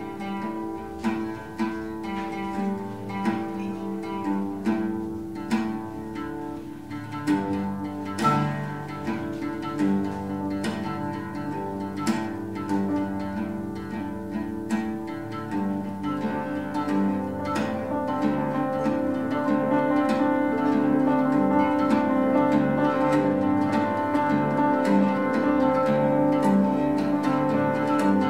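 Oud and grand piano playing a duet. The oud's plucked notes ring over the piano's chords, and the music grows louder and fuller about halfway through.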